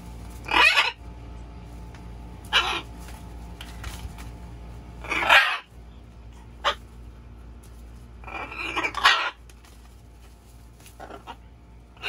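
Pet macaws, a blue-and-gold and a green-winged, squawking: five or six loud, harsh calls every two to three seconds, the longest near the end.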